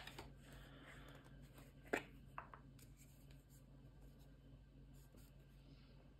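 Near silence: quiet room tone with a faint steady hum, broken about two seconds in by two soft, brief clicks of small handling sounds.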